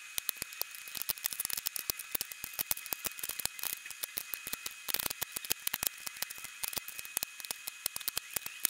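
Rapid, irregular clicking and clacking of 18650 lithium-ion cells being picked up, set down and knocked against one another and the wooden trays as they are sorted, sped up in fast-forward. A faint steady high tone runs underneath.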